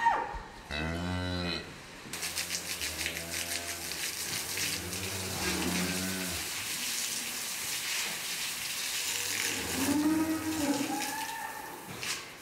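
Dairy cows mooing: several long, low moos one after another, over a steady hiss with fine rapid ticking that starts about two seconds in.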